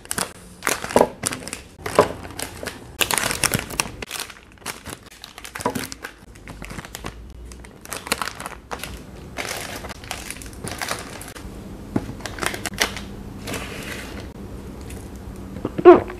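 Plastic ice-cream wrappers crinkling and rustling in irregular bursts as the wrapped bars are handled and laid out on a wooden board. A short, louder sound near the end as a drink is taken from a water bottle.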